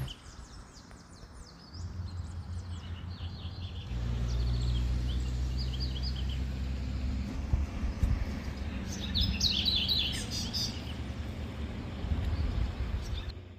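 Birds chirping in short runs of high notes, the clearest run about two-thirds of the way through, over a steady low rumble that gets louder about four seconds in.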